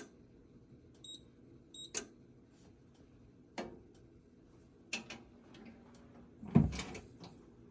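A handful of sharp clicks and knocks, about five, spread over several seconds, with one heavier thump near the end. Two faint, very short high beeps come about a second in.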